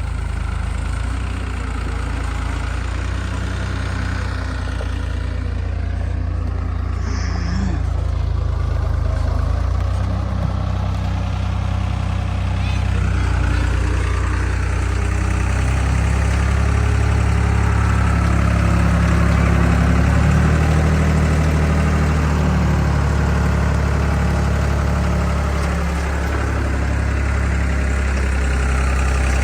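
Heavy diesel engine running steadily, its note shifting and the sound building a little from about ten seconds in, as if under changing load.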